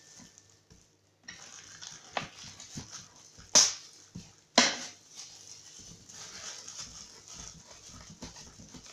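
Plastic-gloved hand scraping and pulling pulp out of a hollowed pumpkin, the glove rustling with scattered small clicks. Two short, loud sounds come about a second apart midway.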